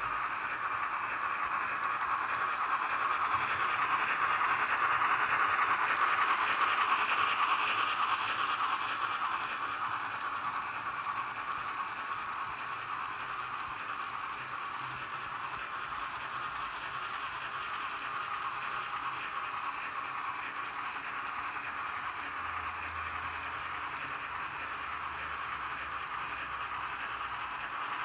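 Model train running: a Roco 150 X HO-scale steam locomotive with a DCC sound decoder pulls tank wagons along the track. There is a steady hissing rush of the decoder's steam sound and wheels on the rails, louder from about four to nine seconds in.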